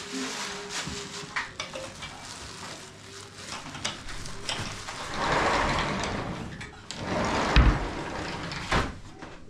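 Kitchen handling noises: uneven rustling, loudest about halfway through, with a few sharp knocks and clinks of kitchenware.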